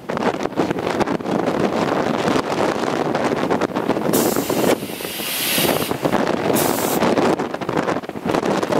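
Gusty wind buffeting the microphone, a rough, uneven rumble, with a few brief bursts of brighter hiss about halfway through.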